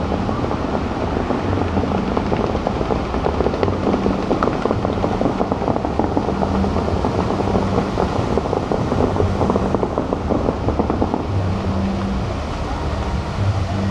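Steady, muffled rush of water from the Bellagio fountain's jets spraying up and falling back into the lake, with a low hum that comes and goes.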